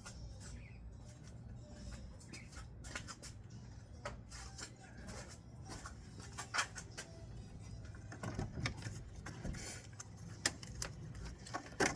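Scattered light clicks and taps of hand work on plastic and metal parts, over a low steady hum; a few sharper clicks come in the second half.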